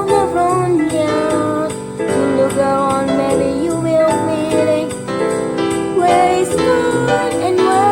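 Music from a children's-style song: a melody line over a steady beat, with no words made out.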